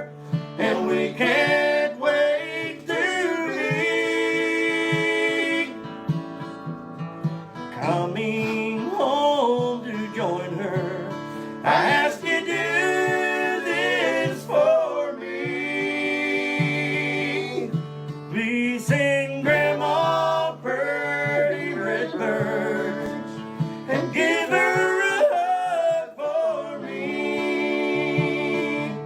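Bluegrass gospel song: voices singing over plucked and strummed acoustic string instruments.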